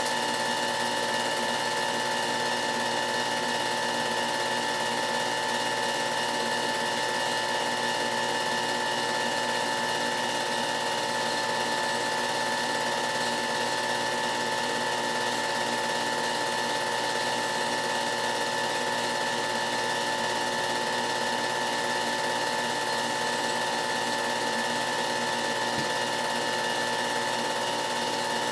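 Film projector running: a steady mechanical whir with a constant high hum and a faint, even clatter, unchanging throughout.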